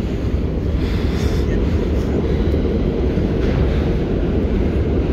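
New York City subway train running along the track into the station, a loud, steady low rumble with brief patches of hiss.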